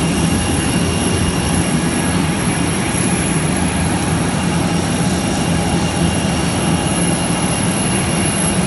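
Jet airliner's turbine running steadily: a loud rushing noise with a constant high whine and a low hum underneath.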